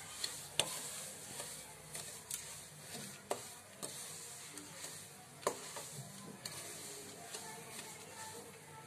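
A wooden spatula stirring and scraping semolina as it roasts in ghee in a non-stick kadai, over a faint sizzle, with a few sharp clicks of the spatula against the pan. The semolina is at the browning stage of making suji halwa (kada prasad).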